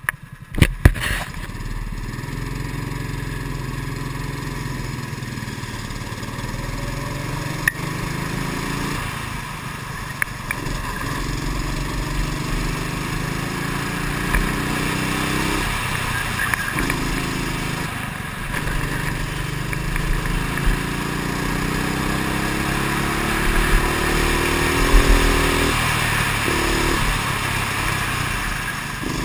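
Kart engine heard from on board, getting louder as the kart pulls away about a second in, after a couple of sharp knocks. It then runs at race pace, rising in pitch along the straights and falling away several times as the kart slows for corners.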